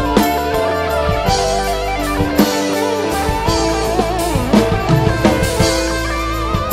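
A live band playing a song: electric guitar over bass and a drum kit, with bending guitar notes in the middle.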